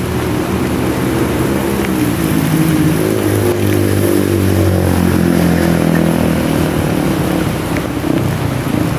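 A motor vehicle engine droning over the hiss of heavy rain, swelling through the middle with its pitch rising and then falling away.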